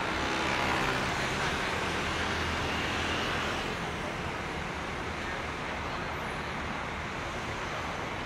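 Diesel engine of a Liebherr LTM 1300 mobile crane running steadily, a little louder in the first few seconds and then easing slightly.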